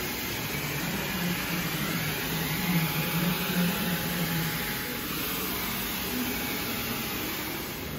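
Steady hiss of workshop background noise with a low wavering hum that stops about halfway through.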